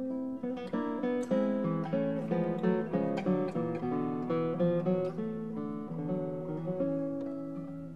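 Acoustic guitar music: a quick run of plucked notes, then slower held notes that fade near the end.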